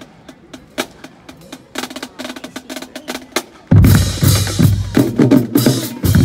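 Marching drum line of snare, tenor and bass drums: first a sparse, quickening run of sharp stick clicks and light taps, then about three and a half seconds in the whole line comes in loud with snares and bass drums playing together.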